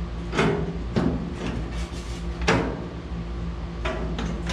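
Sheet-metal clanks and knocks from clamping the bottom edge of a new replacement cab corner panel onto the truck cab, about half a dozen sharp knocks with the loudest about two and a half seconds in.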